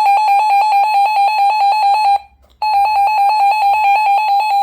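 RadioShack 12-258 weather alert radio running its siren test: a loud, high, rapidly pulsing alarm tone of about nine beeps a second. It breaks off for a moment about two seconds in, then starts again.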